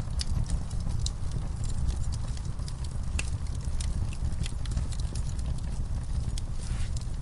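Wood fire in a fireplace: a steady low rumble of flames with irregular sharp crackles and pops from the burning logs.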